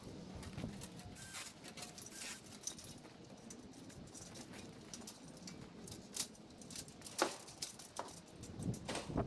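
Irregular sharp clicks and snaps with short rustles, from twigs and branches being handled and cut in a cherry tree.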